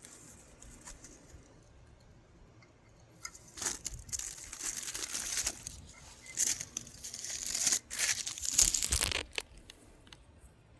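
A string of crimped Black Cat firecrackers going off in a rapid, uneven run of cracks, starting a few seconds in and lasting about six seconds before dying away; every cracker in the string fires.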